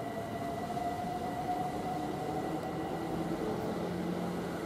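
London Overground Class 378 Electrostar electric train pulling away, its traction motors giving a whine that climbs slowly in pitch as it gathers speed, joined by lower tones in the second half.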